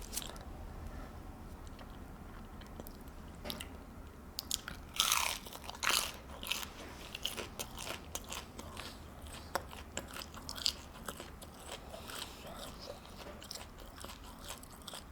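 A person eating close to the microphone: quiet chewing at first, then from about five seconds in a run of crunchy bites and crackly chewing.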